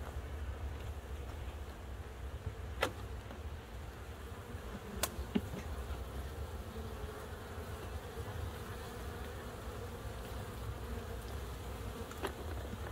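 A swarm of honey bees buzzing steadily as a mass, with two sharp clicks about three and five seconds in.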